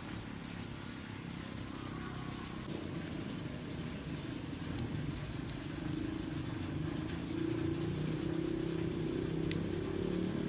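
An engine running steadily, growing louder from about a third of the way in.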